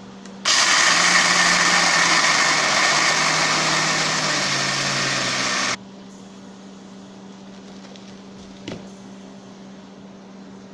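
Electric blender with a small grinding jar, grinding roasted cashew nuts to a powder for about five seconds and then switched off. Its motor note sinks slightly as it runs. A steady low hum remains afterwards, with a single knock near the end.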